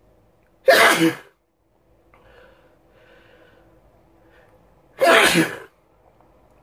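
A person sneezing twice, about four seconds apart, each sneeze a loud, sharp burst lasting about half a second.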